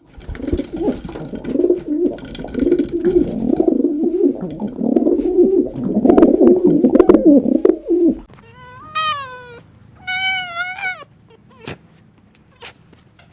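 Pigeons cooing in a low warbling run for about eight seconds. Then a cat meows twice, in short calls that rise and fall in pitch.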